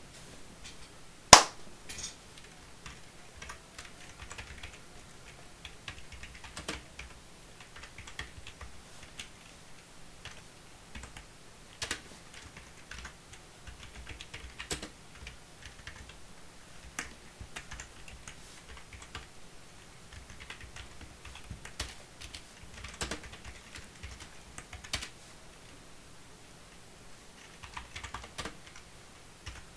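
Computer keyboard typing in irregular runs of key clicks with short pauses. One sharp click about a second in stands out much louder than the rest.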